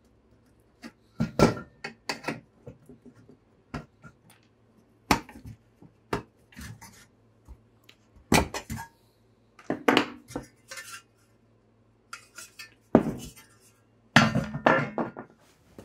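Irregular metal clinks and clanks of pliers working plastic clips out of a Triumph TR7's steel fuse and relay holder bracket, and of the bracket being handled on a wooden bench. The loudest clank comes about 13 s in, followed by a quick run of clatter.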